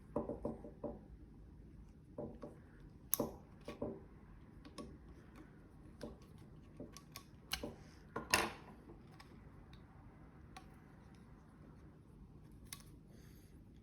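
Scattered clicks and clinks of small metal spray-gun parts being handled and taken off. There are sharper knocks about three seconds in and again about eight seconds in.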